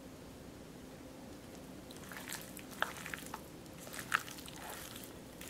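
Hand in a plastic glove mixing marinated tilapia pieces with cornstarch in a bowl: soft, irregular wet squishing and small crackles, starting about two seconds in.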